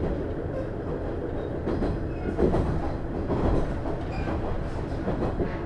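Running noise of a JR East KiHa 110-series diesel railcar with its DMF14HZA engine, heard inside the passenger cabin while under way: a steady low rumble with occasional louder clatter from the wheels on the track.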